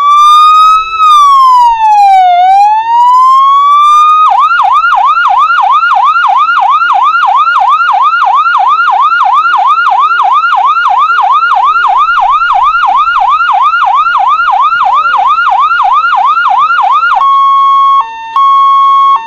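Electronic ambulance siren: one slow wail rising, falling and rising again, then a fast yelp of about three sweeps a second, ending in a steady held tone cut briefly a few times near the end.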